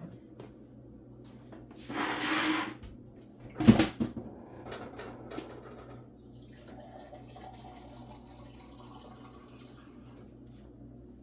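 Handling sounds at a table: a short rushing hiss about two seconds in, then a loud knock as something hard is set down, followed by faint rustling.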